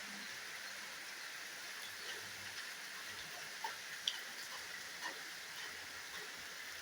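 Steady rushing hiss of a waterfall, with scattered faint ticks and a couple of sharper clicks about three and a half to four seconds in.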